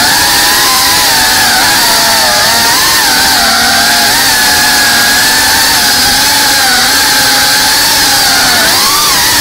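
FPV quadcopter's motors and propellers whining loudly over a rushing hiss, the pitch of the whine wavering up and down as the throttle changes.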